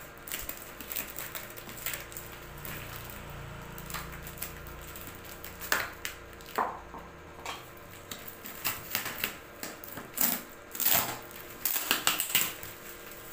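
Packing tape being cut and peeled off a cardboard box: irregular rips and crackles with the cardboard rustling, coming more thickly in the second half.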